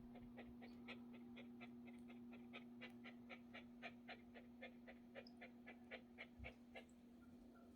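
Small dog panting quickly, about four breaths a second, during a warm half-bath soak; the panting stops near the end. A steady low hum runs underneath.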